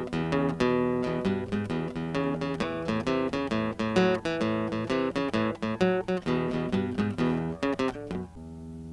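Tagima California acoustic guitar played fingerstyle: a quick run of plucked notes, then a chord left ringing and fading near the end.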